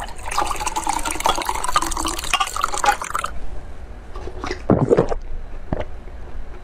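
Syrup and fruit chunks from a small can of yellow peach and coconut poured into a glass mug, a filling pour for about three seconds that stops suddenly. After it come a few short sips from the mug.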